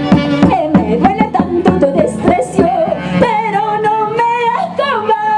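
Live band music with singing: a wavering melodic voice line, held notes in the middle, over steady percussion strokes.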